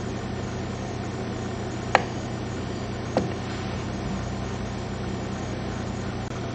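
Steady low hum with a hiss over it, and two short, sharp clicks from a computer mouse or keyboard, about two and three seconds in.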